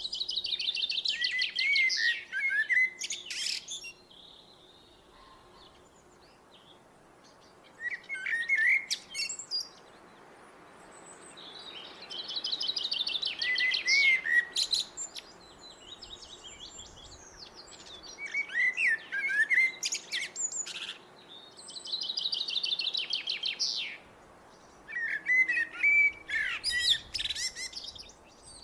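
A songbird singing in short repeated phrases, about six of them with brief pauses between. Most phrases are a fast high trill that drops into a few lower twisting notes and ends with sharp clicks.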